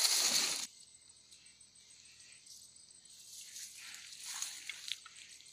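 Woven plastic sack crinkling loudly as it is handled, cut off abruptly under a second in. After that comes faint outdoor background, with soft rustling and a few small clicks from about three to five seconds in.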